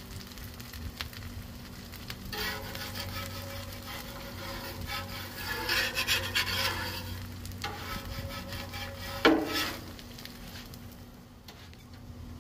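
Metal spatula scraping across the steel top of a Blackstone flat-top griddle to lift a taco with fried cheese, over light sizzling. A sharp clank about nine seconds in.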